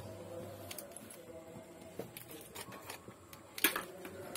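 Snap-off utility knife slicing through packing tape and cardboard on a parcel box, with scattered scrapes, clicks and crackles of the box being handled; the loudest crackle comes about three and a half seconds in.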